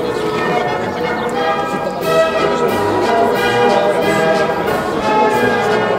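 Bells ringing, with many overlapping steady tones.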